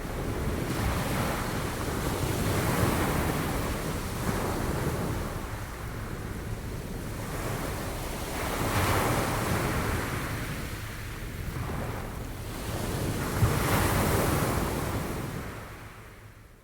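Sea waves breaking and washing on the shore in slow surges, with a low wind rumble on the microphone; the sound fades out near the end.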